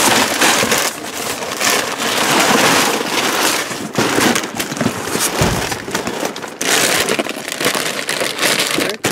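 Bags of potato chips crinkling and rustling loudly as they are grabbed and shuffled by hand, rubbing and scraping against cardboard boxes, in a dense irregular stream of crackles.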